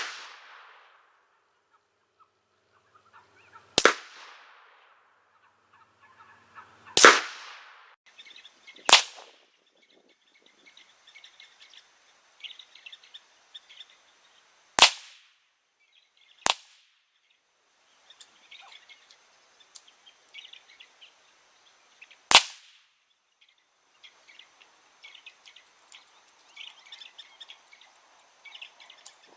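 AR-15 rifle with a 20-inch barrel firing .223 factory rounds: six single shots spaced about two to six seconds apart. Birds chirp faintly between the shots.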